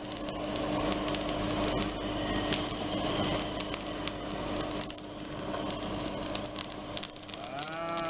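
Handheld kitchen blowtorch blowing its flame onto mentaiko-mayonnaise sauce, a steady hiss with fine crackling as the sauce sears.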